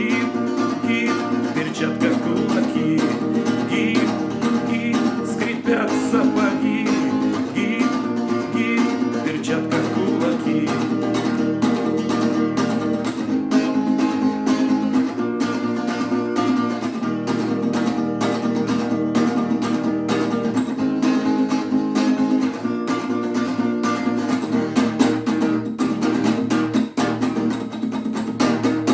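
Guitar-led instrumental music, the closing section of a song after the last sung line.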